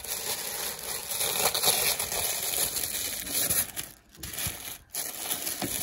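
Tissue paper rustling and crinkling as it is unfolded and pulled back by hand, with a couple of brief pauses.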